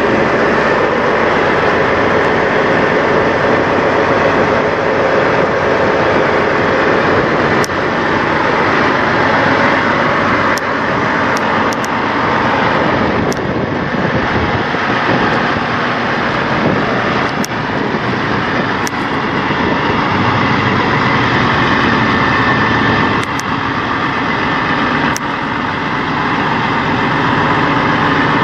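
Diesel engines of parked semi trucks idling close by: a loud, steady drone with a scatter of faint clicks.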